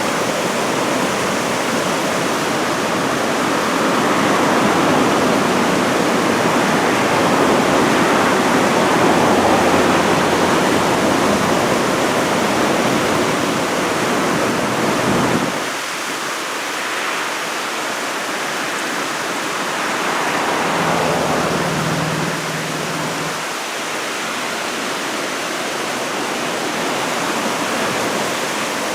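Loud, steady rush of ocean surf from typhoon swell breaking along a rocky point. The low rumble drops away suddenly about halfway through.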